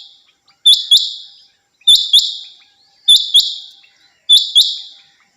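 Female rain quail calling loudly: a pair of sharp, rising notes repeated about once every 1.2 seconds, four pairs in a row.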